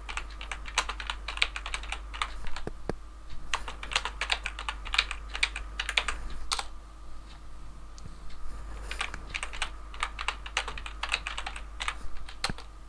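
Typing on a computer keyboard: quick runs of keystrokes, with a pause of about two seconds near the middle before the typing resumes.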